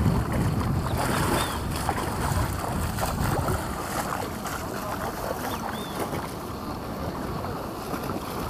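A person wading through shallow water, legs splashing with each step, with wind on the microphone. A few short high chirps come over the top.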